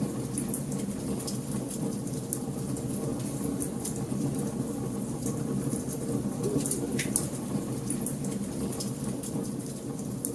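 Wood fire crackling in a fireplace: a steady low rumble of flames with irregular snaps and pops, two of them sharper, near the start and about seven seconds in.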